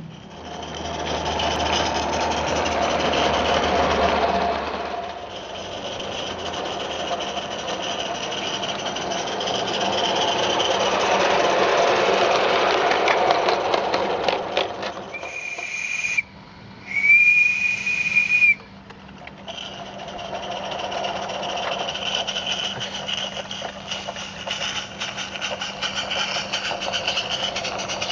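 Live-steam garden-scale tank locomotive hauling a freight train, its exhaust hissing and chuffing steadily. A little past halfway its steam whistle sounds two steady blasts, a short one and then a longer one.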